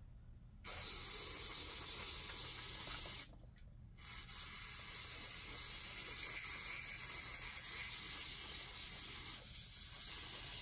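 Aerosol carburetor cleaner hissing out through a straw onto a soot-blackened generator spark arrestor screen to clean off carbon. There is one burst of about two and a half seconds, a short pause, then a long burst of about six seconds.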